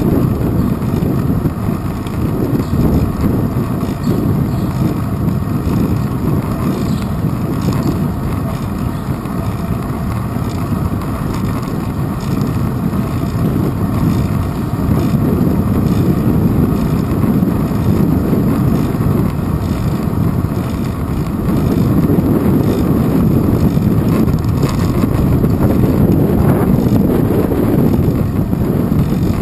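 Wind buffeting and road rumble from a bicycle riding along a street, picked up by a handlebar-mounted GoPro Hero 2: a steady low rushing noise that grows a little louder about two-thirds of the way through.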